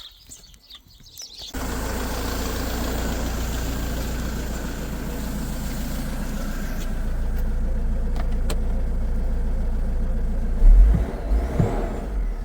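Mercedes Sprinter van engine catching about a second and a half in and then running steadily, now that the fuel pump gets power through a new wire from its relay. A couple of loud knocks come near the end.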